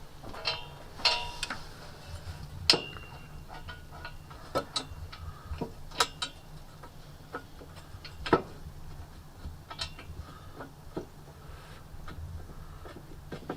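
Irregular metallic clicks and clinks of a wrench working on exhaust header bolts. One clink about two and a half seconds in rings briefly.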